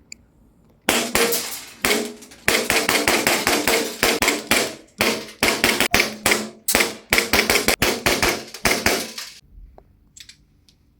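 EMG Kimber Eclipse 1911 CO2 gas blowback airsoft pistol firing a long string of sharp shots, two single shots and then rapid, uneven strings, stopping about nine seconds in.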